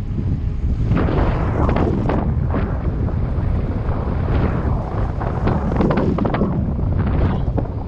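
Wind buffeting the action-camera microphone during a mountain-bike ride, a constant low rumble, with frequent sharp knocks and rattles from the CTM Scroll mountain bike running over rough trail.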